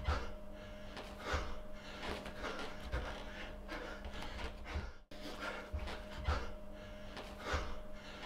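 A person breathing heavily, a breath roughly every second, over a steady low hum. The sound cuts out for an instant about five seconds in, then the breathing resumes.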